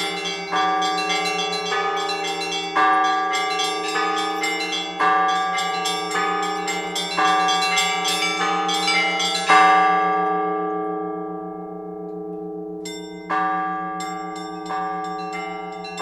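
Several Orthodox church bells rung by a bell ringer: smaller, higher bells struck in a quick rhythm over the ringing of larger bells. A heavy stroke comes about nine and a half seconds in, the small bells stop for about three seconds while the lower bells ring on, and then the pattern picks up again.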